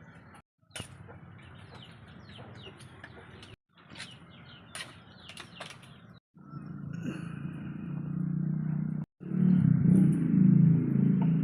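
Small birds chirping over background noise, across several short cuts. In the second half a low steady hum comes in and grows louder, taking over near the end.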